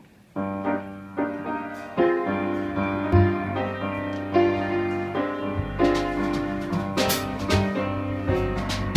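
Jazz piano introduction on a grand piano, chords and runs starting about half a second in. About halfway through, the upright bass and the drummer's cymbals join in, setting up a swing groove.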